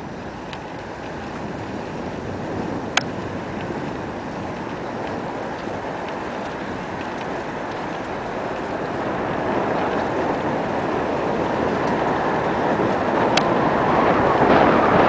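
Wind rushing on the microphone of a camera carried on a moving bicycle, a steady rushing that grows louder over the last several seconds. Two sharp clicks, about three seconds in and near the end.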